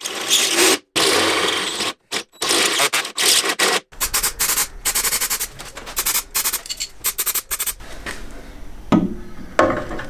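Cordless drill with a step drill bit cutting through the steel of the chassis rail, a rough scraping noise broken off abruptly several times. Then comes a fast run of short, evenly spaced rattling strokes, and a couple of sharp knocks near the end.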